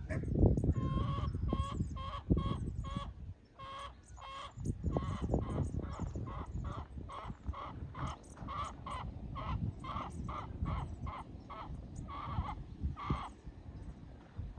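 A bird calling over and over, short pitched calls about two to three a second that stop about a second before the end, over a low rumble.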